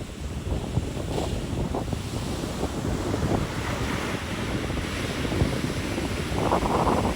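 Ocean surf washing ashore, with strong wind buffeting the microphone in gusts. A wave swells up louder near the end.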